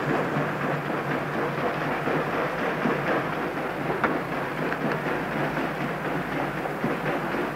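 Side-wheel paddle steamer under way: its paddle wheels churn and splash the river water in a steady rushing noise, over a low steady hum.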